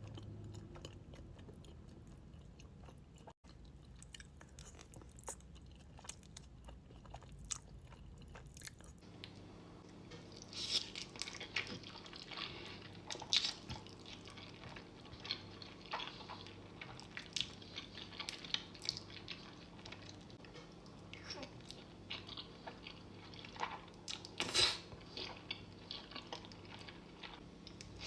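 Close-miked chewing, with sharp wet mouth clicks: sparse at first, much busier from about a third of the way in.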